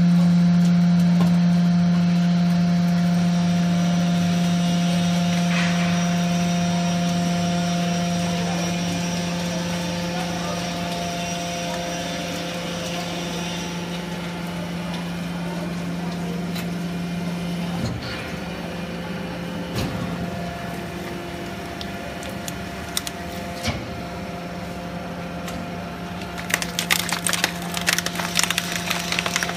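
Hydraulic baling press running: its electric motor and piston pump hum steadily, and the hum changes and drops about 18 seconds in. Near the end comes a rapid run of sharp crackles as the compressed aluminium cans crunch in the press.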